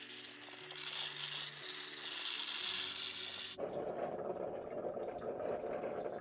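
Moccamaster drip coffee maker brewing: the water heater hisses and sputters as it pushes boiling water up to the filter. About three and a half seconds in, the sound changes abruptly to a duller, lower bubbling.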